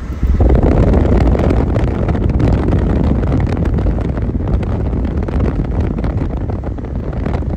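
Wind rushing over the microphone of a phone filming from a moving car, over the car's low road noise. It gets suddenly louder about half a second in, then stays steady.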